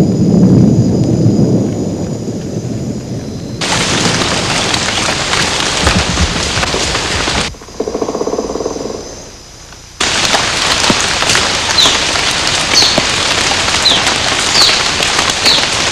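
Thunderstorm: thunder rumbling low, then heavy rain hissing, cutting in and out abruptly. Near the end it gives way to steady rain-like hiss dotted with short high falling chirps.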